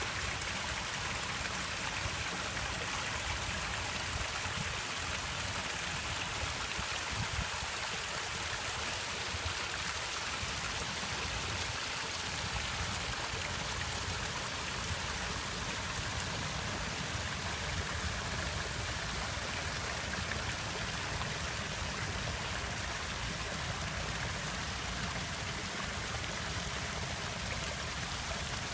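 Shallow stream of water running and splashing over rocks, a steady rush of flowing water.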